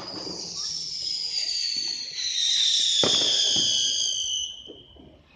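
Fireworks: a sharp bang, then a high whistle of several tones gliding slowly down in pitch for about four seconds, with another bang about three seconds in.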